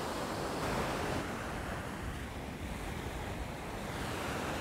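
Ocean surf breaking on a sandy beach, swelling as a wave breaks about a second in, with wind buffeting the microphone.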